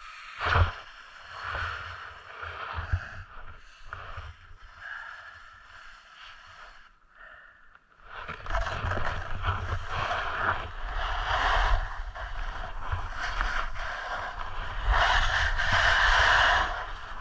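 Snowboard scraping and sliding on groomed snow, with wind rumbling on the camera microphone. A short scrape about half a second in, a few quieter seconds of small scuffs, then from about eight seconds in a steady hiss of the board running downhill.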